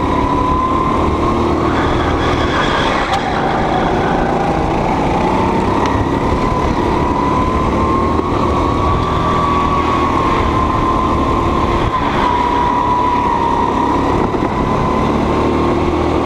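Go-kart engine running hard at speed, heard from the driver's seat, its note drifting slowly up and down a little as the revs change through the lap.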